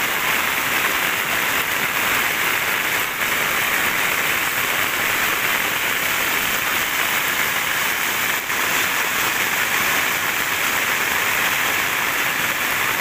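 Heavy rain falling on shallow floodwater running over a lane: a steady, even hiss of rain on the water surface, mixed with the flow of the flood.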